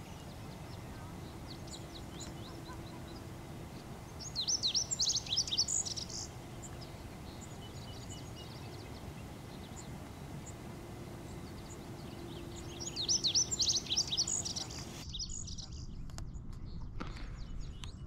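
Male lazuli bunting singing: two quick, jumbled songs of high notes, about eight seconds apart, over a steady outdoor hiss.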